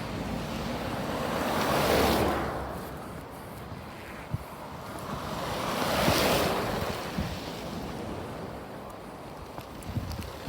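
Two vehicles pass one after the other on a slushy road, about four seconds apart, their tyres hissing through wet snow and slush as each swells and fades. There is wind noise on the microphone.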